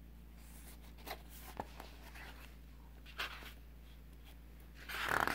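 Pages of a thin paperback picture book being handled and turned by hand: soft paper rustles and light taps, the loudest rustle near the end.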